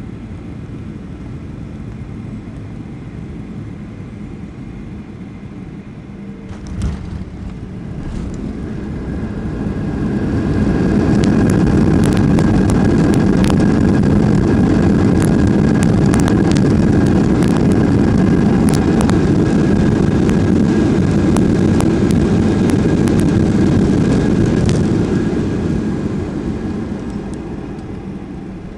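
Cabin noise in a Boeing 737-800 landing. A thump comes about seven seconds in as the main wheels touch down. Then the CFM56 engines spool up into reverse thrust, loud for about fifteen seconds with clicking rattles, and wind down as the plane slows on the runway.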